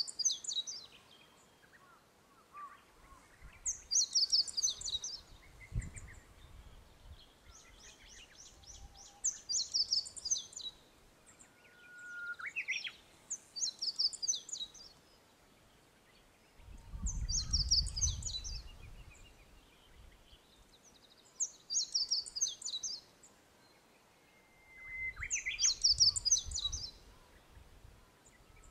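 Small songbirds singing outdoors: one repeats a short, high, intricate phrase about every four seconds, and a second gives a held whistle that breaks into a quick phrase, twice. Gusts of wind rumble on the microphone three times.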